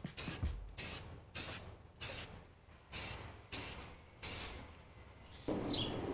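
Aerosol spray-paint can spraying purple paint onto a bicycle frame in short hissing bursts, about seven of them at roughly two a second. The bursts stop a little past the middle, and near the end a steadier, lower noise comes in.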